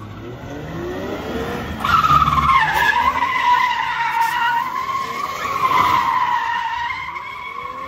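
Lexus IS sedan drifting: the engine revs up, then from about two seconds in the tyres squeal loudly and without a break, the squeal wavering in pitch as the car slides.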